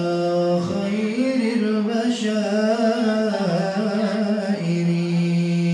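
A man singing an Arabic sholawat solo into a microphone, drawing out a long melismatic phrase whose notes waver and bend before settling into steady held tones. There is no drum accompaniment.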